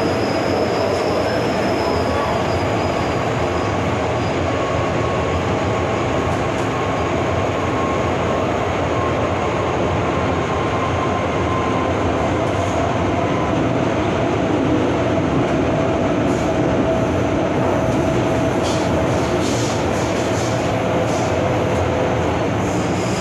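MTR Island Line M-Train electric metro train running between stations, heard from inside the car: a steady rumble of wheels and running gear with a faint steady whine over it.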